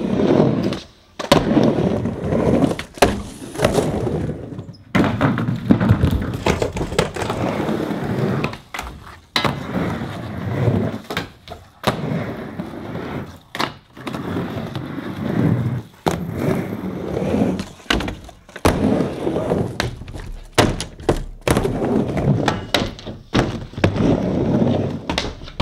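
Skateboards riding a wooden mini ramp: urethane wheels rolling across the plywood transitions, broken by many sharp clacks and knocks as boards and trucks strike the coping and the ramp.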